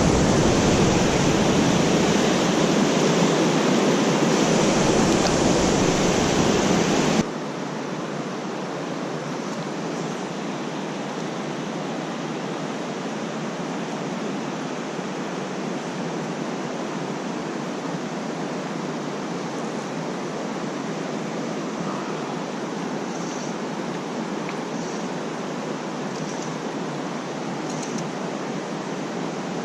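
Steady rush of a creek running high. About seven seconds in, it cuts abruptly to a quieter stretch of the same steady water sound, with a few faint, short, high chirps near the end.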